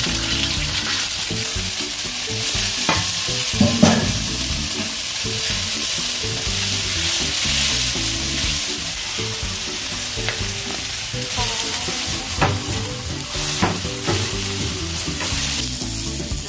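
Egg and termite mushrooms sizzling in hot oil in a steel wok while being stir-fried with a spatula, with a few sharp scrapes and knocks of the spatula on the wok, the loudest about four seconds in. Near the end the food is scraped out of the wok.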